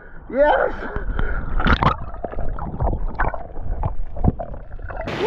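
Sea water sloshing, splashing and gurgling around a hand-held camera as it rides at the surface and dips under while swimming, with scattered short knocks and cracks. A brief rising-then-falling pitched call sounds about half a second in.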